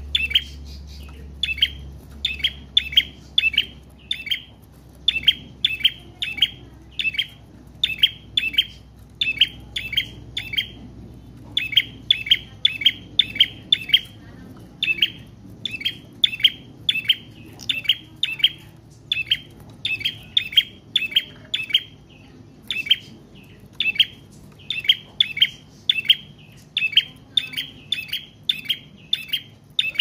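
Caged prenjak trotol singing long and loud: sharp, high chirps in quick groups of three to five notes, repeated about once a second with only brief gaps.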